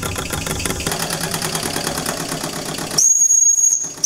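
Small model steam roller's steam engine running with fast, even chuffing and hiss. About three seconds in, its steam whistle starts blowing a loud, steady high whistle, breaking off briefly near the end and sounding again.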